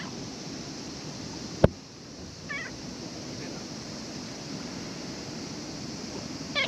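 Calico cat giving short, high meows, once about two and a half seconds in and again at the very end. A single sharp knock, a little before the first meow, is the loudest sound.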